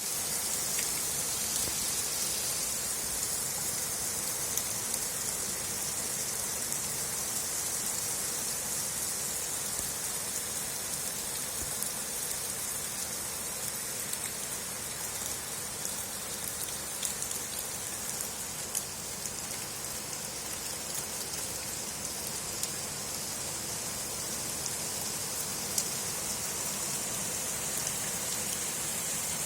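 Heavy rain falling steadily, a dense even hiss with scattered drop clicks.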